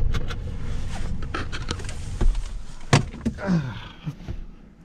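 Clicks and knocks of a person shifting and climbing out of a pickup truck's cab, over a low rumble that fades out. One sharp knock about three seconds in, followed by a brief voice sound.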